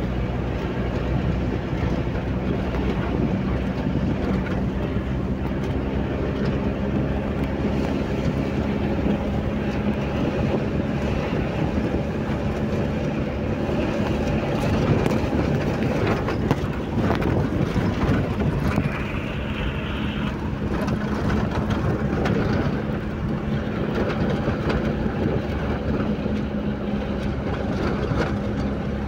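A car's engine hum and the rush of tyres and wind heard from inside the cabin while driving across desert sand in a sandstorm, steady throughout.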